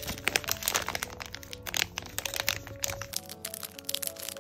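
Crinkling and crackling of a silver foil zip-lock pouch being handled and opened by hand, in many quick crackles, over steady background music.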